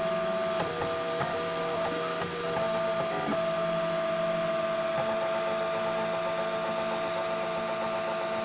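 3D printer running: its stepper motors whine at steady pitches that switch in steps as the print head changes moves, with one tone held for the second half, over a steady hum.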